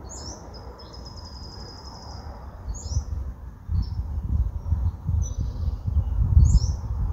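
Pacific-slope flycatcher calling: a short, high, upslurred note repeated about five times, a second or so apart, with a longer buzzy trill near the start. Wind rumbles on the microphone underneath, gusting louder in the second half.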